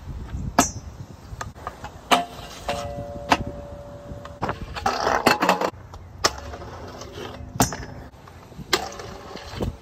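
Stunt scooter riding on concrete: wheels rolling, sharp clacks and knocks as the scooter lands and hits the ground, and grinds scraping along a concrete ledge and a round metal rail, with a brief metallic ringing in the middle and a louder scrape about five seconds in.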